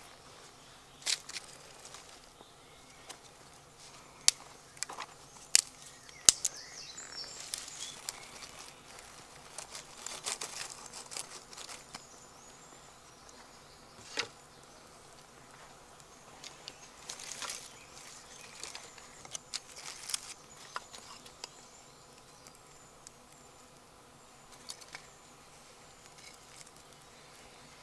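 A small fire of wood-shaving tinder catching and crackling, with sharp snaps and hissing stretches, as split kindling is laid on it.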